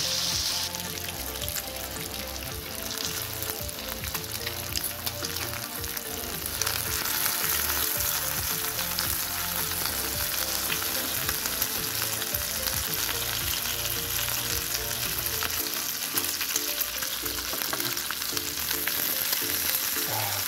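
Bacon strips sizzling and spattering in a hot nonstick frying pan, the sizzle growing louder about six seconds in. Light clicks of metal tongs against the pan as the strips are turned over.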